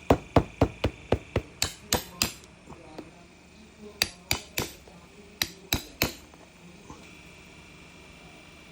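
Hammer striking a leather shoe under repair: a quick run of about nine blows, about four a second, then after a pause two sets of three.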